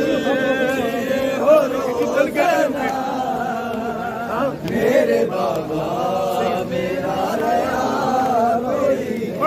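A man chanting a noha, a Shia mourning lament, in long held notes that waver up and down in pitch.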